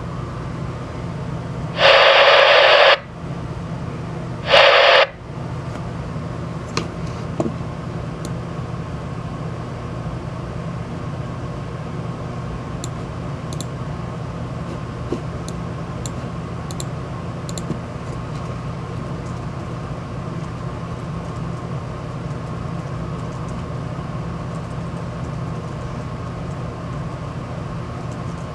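CB radio receiver hissing on an open channel with no voice, with a low hum and a faint steady tone under it. Twice near the start, about two seconds apart, a short, much louder burst of static cuts in, as a station keys up without speaking.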